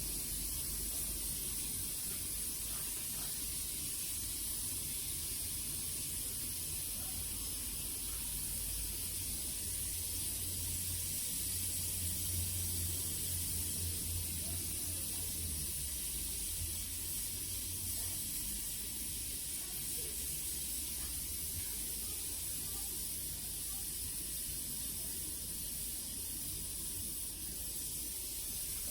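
Gas brazing torch flame hissing steadily, with a low rumble underneath.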